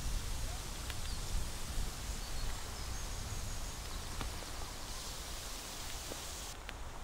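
Outdoor ambience: a steady noisy rumble with a high hiss that cuts off near the end, a few faint bird chirps, and scattered light clicks.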